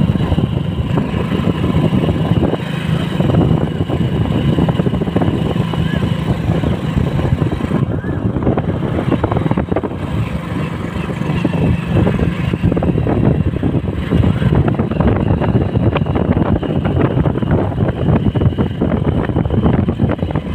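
Motorcycle engine running steadily while riding, heard from the rider's seat, with a steady low hum and rough flutter that does not let up.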